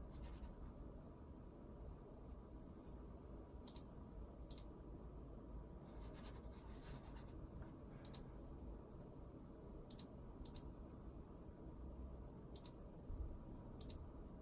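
Faint, sparse clicks of a computer mouse's buttons, single and in quick pairs, a few seconds apart, over a quiet room background.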